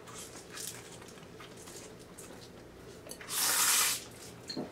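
Bibim-myeon noodles being slurped: one long, loud slurp about three seconds in, lasting under a second, with faint short mouth noises before it.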